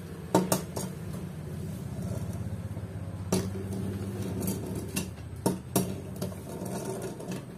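Scattered sharp metal clicks and taps as bolts are set into and handled on the camshaft holder of a Suzuki Satria FU cylinder head, over a steady low hum.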